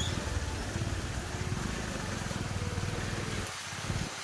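A motorbike or scooter engine running with a fast, even low pulse while riding, under a steady hiss of rain and tyres on a wet road. The engine note drops away briefly near the end.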